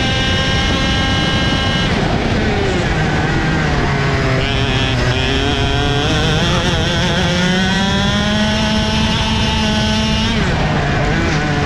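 Racing kart's two-stroke engine, heard onboard. It holds high revs, falls off about two seconds in, then climbs in one long rising run before dropping briefly and picking up again near the end. Other karts' engines run close by.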